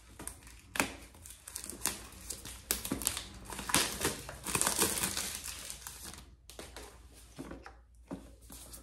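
Plastic shrink-wrap being peeled and torn off a small cardboard box, crinkling in irregular crackles that thin out after about six seconds.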